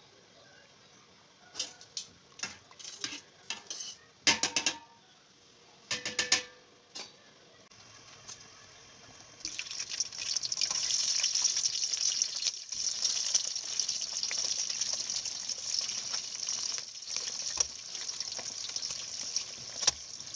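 A string of metal pot and utensil knocks and clinks, the loudest two with a short ring, then about halfway in a steady sizzle starts as pieces of stuffed beef intestine fry in hot oil in a wok over medium heat.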